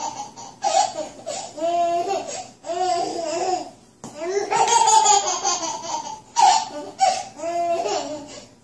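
A baby laughing in several high-pitched bouts, with short gaps between them.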